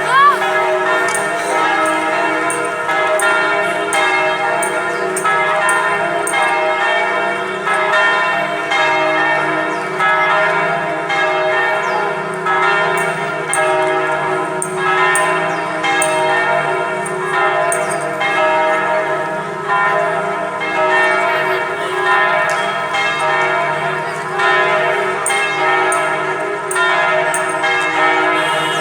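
Church bells of Hanoi's St. Joseph's Cathedral ringing a full peal: many bells struck in quick succession, their tones overlapping into continuous ringing.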